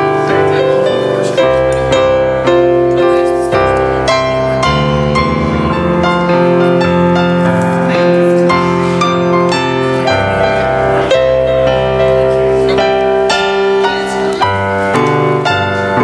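Piano music: a slow piece of held chords and melody notes.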